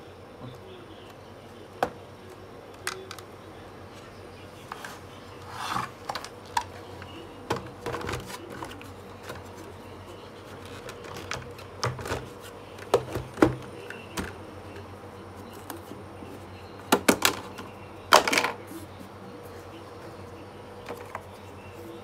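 Irregular plastic clicks, knocks and short scrapes from hands handling the opened plastic housing of a Miele S381 canister vacuum cleaner, loudest in a cluster of knocks and a scrape about three quarters of the way through.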